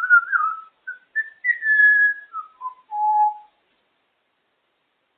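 African grey parrot whistling a string of clear notes that step downward in pitch, ending on a longer low note about three and a half seconds in.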